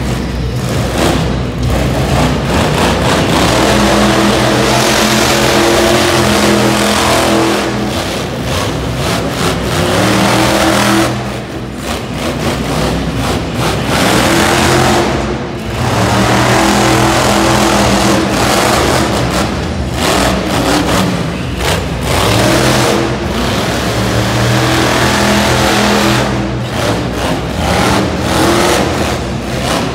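Monster truck's supercharged V8 revving hard again and again, the engine note rising and falling in repeated bursts with a few brief dips between.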